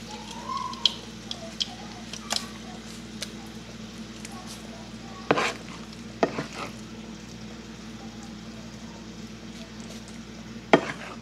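Oil sizzling steadily in a frying pan around a frying flatbread, with a wooden spoon scooping thick chicken mixture and knocking against the dishes several times, loudest about five seconds in and near the end.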